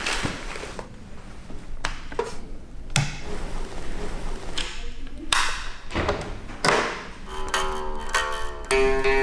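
A guitar gig bag being unzipped and handled, heard as several short noisy strokes. From about seven seconds in, an electric guitar is picked note by note, with one note held near the end.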